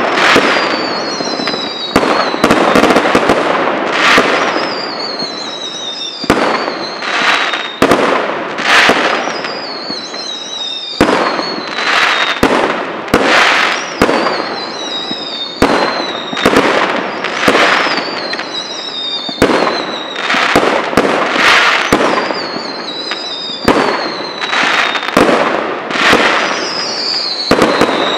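Aerial fireworks going off in quick succession: sharp bangs of shells bursting, one every second or two, over a dense hiss. High whistles slide down in pitch between the bangs.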